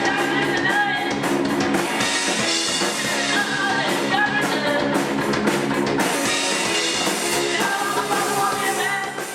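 Rock music with singing, drums and guitar, which cuts off just before the end.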